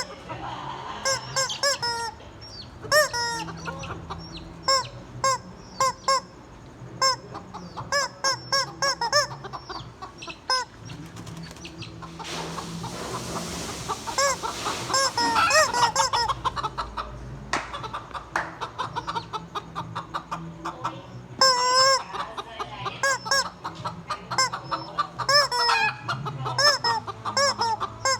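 Chickens clucking, many short calls in quick succession, with a stretch of hiss about halfway through.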